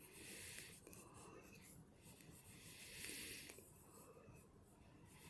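Faint heavy breathing close to the microphone: long hissing breaths of about a second each, with the soft scratch of a pencil on paper.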